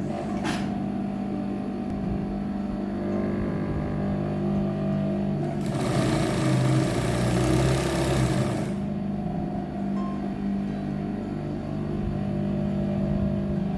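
Electric sewing machine running as it stitches a seam, a steady motor hum, with a louder, faster run from about six to nine seconds in.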